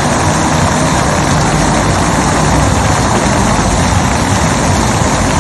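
Large crowd applauding steadily, a dense continuous clatter of many hands clapping.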